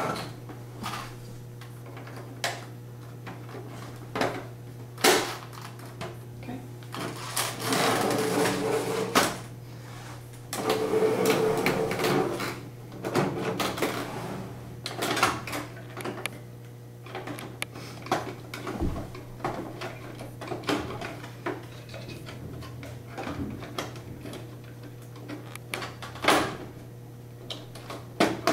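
Plastic clicks, knocks and rubbing as the front panel of an Epson R2000 printer is worked into place and snapped onto the printer body. There are two longer stretches of rubbing about a third of the way in, over a steady low hum.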